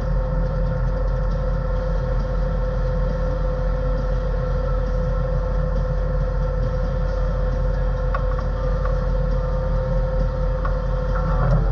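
Motor grader's diesel engine running steadily under load, heard inside the cab, with a steady whine over the engine note as the blade works dirt into a windrow. Near the end the whine drops in pitch.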